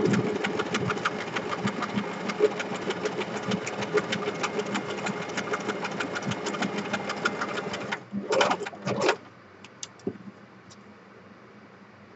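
Domestic electric sewing machine stitching around the edge of a paper bookmark, a fast, even run of needle clicks over the motor's hum. It stops about eight seconds in, followed by a few brief noises.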